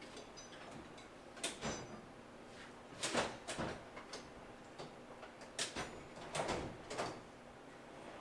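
Metal hand tools clattering as they are handled and set down: several short, irregular clatters, a few with a brief high metallic ring.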